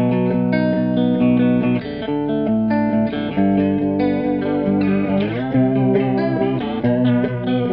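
Electric guitar playing a chordal riff through a Stoy Sound Choir Boy analog bucket-brigade chorus pedal, boosted by a Boss Blues Driver. The held chords waver in pitch from the chorus, and the wobble shifts as the chorus's rate and depth knobs are turned.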